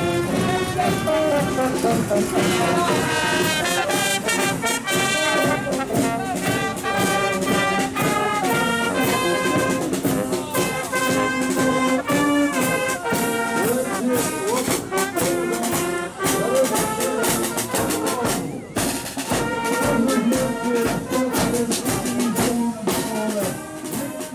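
Brass band music, several brass instruments playing together in a steady rhythm, beginning to fade out at the very end.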